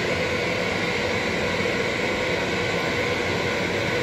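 Loud, steady hiss of FM radio static from an Acoustic Audio powered PA speaker switched to radio mode and not tuned to a station.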